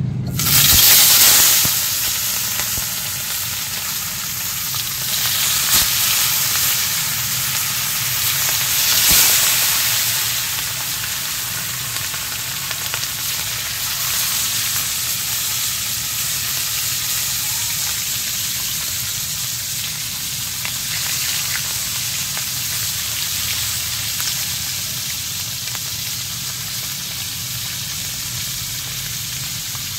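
Small mackerel frying in hot oil in a pan: a loud sizzle flares up as a fish goes in, about a second in, surges again around six and nine seconds, then settles to a steady sizzle that slowly eases.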